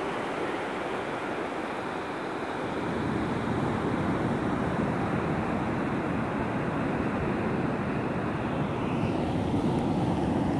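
Ocean surf breaking and washing up a sandy beach, a steady rush of waves that grows louder about three seconds in.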